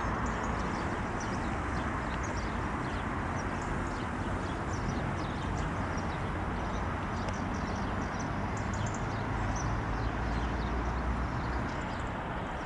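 Steady rushing background noise with many brief, high-pitched chirps from small birds scattered throughout.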